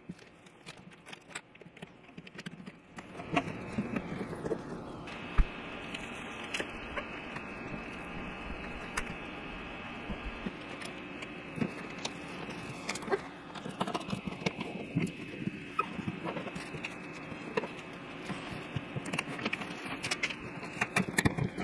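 Tape being handled and pressed down to seal the gaps around a table saw's dust hood: scattered clicks and crinkles, with one sharp knock about five seconds in, over a steady hum that comes in about three seconds in.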